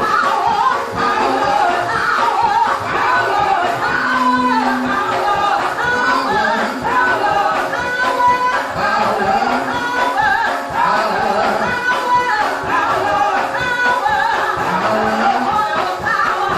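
Gospel music with several voices singing together.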